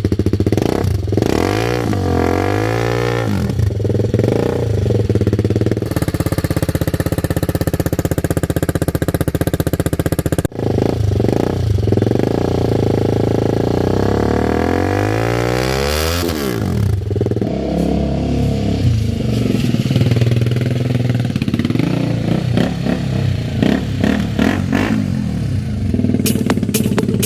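TVS Apache RR310's single-cylinder engine running through an aftermarket Akrapovic-style exhaust, revved up and down several times, including one long climb in revs that drops off sharply. A quick run of sharp pops comes near the end.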